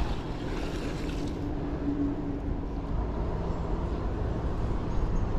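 Steady low rumble of wind buffeting the microphone, with a faint steady hum during the first three seconds.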